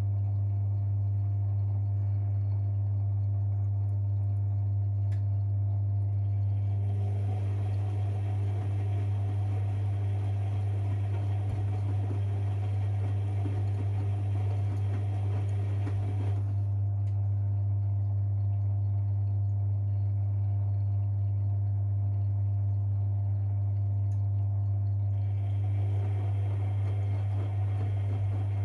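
Privileg 5020 front-loading washing machine working through its wash cycle: a steady hum, with a louder run of drum-turning noise for about ten seconds in the middle that stops and starts again near the end.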